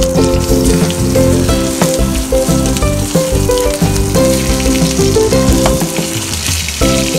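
Salmon fillet sizzling in hot oil in a frying pan, a steady hiss as it is turned, with background music playing over it.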